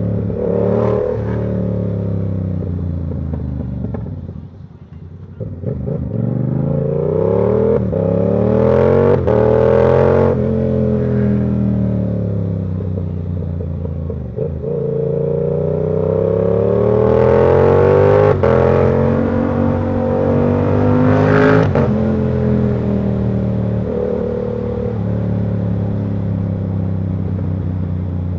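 Yamaha R7's parallel-twin engine under way, its revs repeatedly climbing and dropping as it accelerates and shifts. The engine goes quieter and lower about four to six seconds in, then pulls up in pitch again several times.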